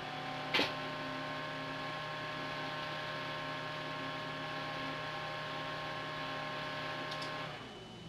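Enermax Apollish UCAP8 80 mm LED case fan running at full 12 V, about 2000 to 2300 rpm: a steady whir with a humming tone and several higher whining tones. A single sharp click comes about half a second in. The fan is switched off about seven and a half seconds in and its sound stops.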